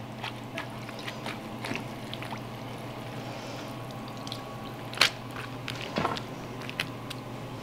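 Wet yuba (tofu skin) sheets being lifted and handled over a glass bowl of marinade, liquid dripping and squishing back into the bowl. Small scattered clicks throughout, with a sharper knock about five seconds in.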